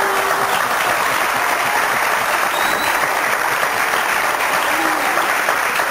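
Studio audience applauding, a steady sustained clapping.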